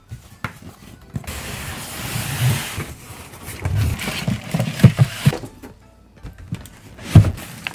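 Toy packaging being opened over background music: a rustling hiss of packaging about a second in, then several dull knocks as the box and its contents are handled.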